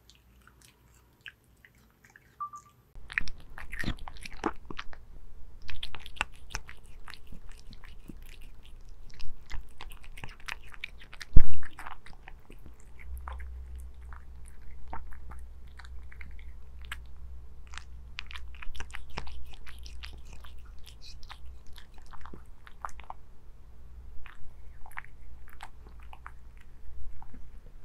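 Cat eating raw salmon pieces close to a small microphone: many irregular wet chewing and clicking mouth sounds, starting about three seconds in. One loud thump comes a little before the middle, and a low steady rumble runs under the chewing after it.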